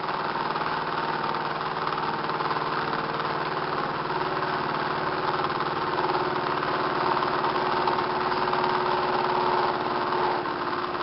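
Home-built four-pole, eight-transistor pulse motor running steadily: its spinning rotor gives a constant hum with a whirring hiss over it. It is turning at reduced speed, about 1,200–1,300 RPM, held down by the load of the added generator coil and its cold, stiff bearings.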